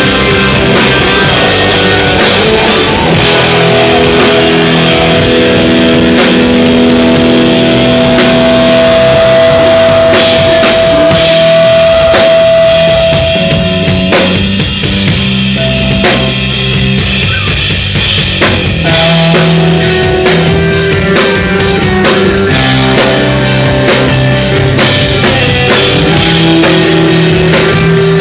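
Hardcore band playing live: distorted electric guitars, bass guitar and drum kit at full volume. A long held guitar note rings from about four seconds in to about halfway, the playing thins out briefly, then the full band comes back in.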